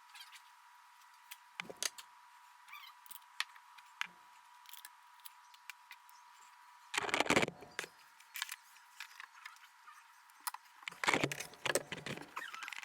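Scattered clicks and light metallic rattles of hardware and tools being handled during a drawer install, with a louder clatter about seven seconds in and another near the end.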